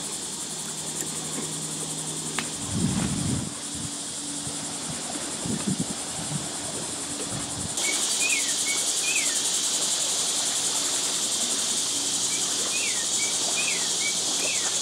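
Steady high-pitched insect chorus buzzing, louder after a cut about eight seconds in. From then on a bird gives short chirps that drop in pitch, a few at a time. Two dull low thumps, near three and six seconds in, are the loudest moments.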